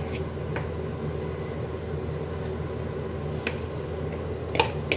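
Kitchen background: a steady low hum, with a few faint clicks and a sharper tap near the end, like a utensil against a pot.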